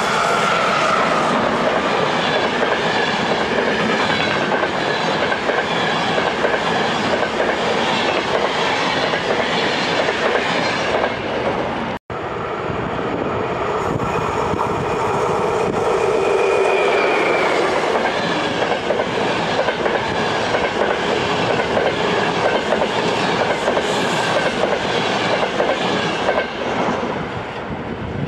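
Passenger trains hauled by electric locomotives passing through a station: a Siemens Vectron with its coaches, then a ZSSK class 350. Wheels clatter over rail joints and points above a steady rush of rolling stock. The sound breaks off abruptly about twelve seconds in and resumes with the second train.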